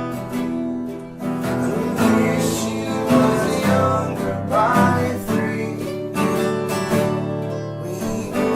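Acoustic guitar playing a folk song, strummed and picked.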